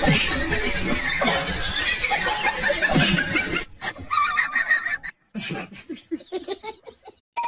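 A man laughing and snickering, densest for the first three and a half seconds, then breaking up into short, fainter fragments before stopping near the end.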